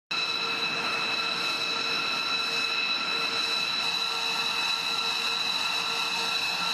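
B-2 Spirit's General Electric F118 turbofan engines running at ground idle: a steady jet whine of several high tones over a constant hiss.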